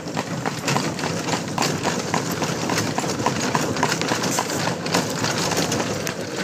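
A harnessed horse's hooves clopping on a paved road in a steady rhythm, about three to four strikes a second, over the continuous rolling noise of the buggy it pulls.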